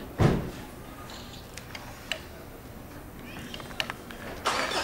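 Hand rivet-nut tool setting a threaded rivet nut into a pickup's roof panel: a loud, short creak as the handles are squeezed, then a few light metallic clicks.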